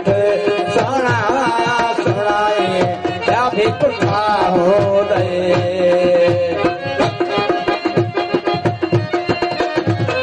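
Live Sindhi folk song: a harmonium plays the melody while a hand drum keeps a steady beat. A voice glides through sung phrases for the first several seconds, then the harmonium and drum carry on alone.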